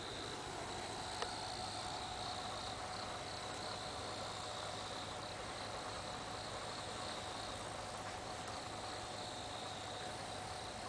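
Crickets chirping steadily, with a faint steady hum underneath and a single sharp click about a second in.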